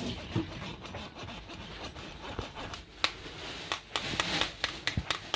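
A spoon scraping against a mesh kitchen sieve as the last of a blended gravy is pushed through it. In the second half come a quick run of irregular sharp clicks and knocks of utensils.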